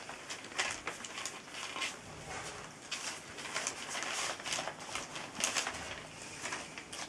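A litter of puppies eating dry kibble from a shared plate: irregular crunching and clicking of small teeth on the kibble and plate, with their paws rustling the newspaper underfoot.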